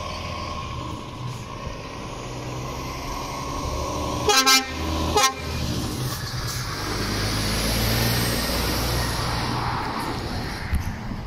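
Lorry horn tooting twice, a longer blast about four seconds in and a short one half a second later, over the steady low running of truck engines.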